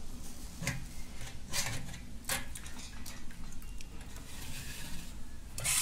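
A wet cloth bundle of paneer curds being squeezed and twisted by hand in a perforated steel colander. The cloth rubs and rustles, with a few short scrapes and knocks, the loudest near the end.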